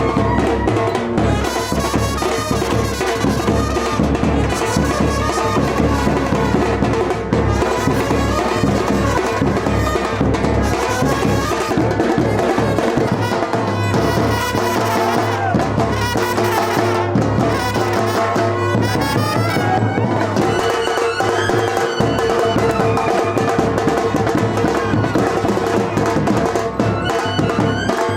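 Loud, continuous music led by brass, with a steady drum beat.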